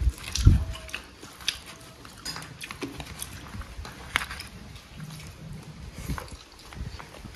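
Eating sounds: chewing and biting with scattered light clicks and low thumps, as a meal of rice and curry is eaten.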